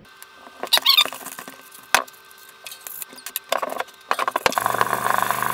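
Scattered handling sounds: short squeaks and a few sharp clicks. About four seconds in, a small power-tool motor starts and runs with a steady hum.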